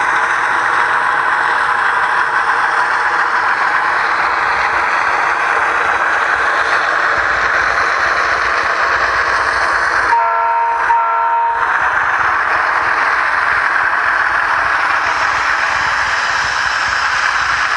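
Model train running along its track, heard from on board: a steady clattering rumble. About ten seconds in its horn sounds two short blasts, and the running noise drops away while it sounds.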